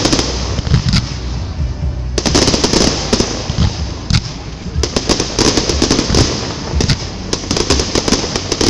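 Fireworks display: aerial shells bursting with booms and rapid popping and crackling over a steady hiss. The cracks thin out briefly, then come thick and fast from about two seconds in.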